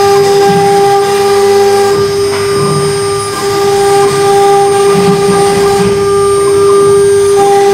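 CNC router spindle running with a steady high-pitched whine while its bit carves lettering into a wooden board. A rougher cutting noise comes and goes underneath.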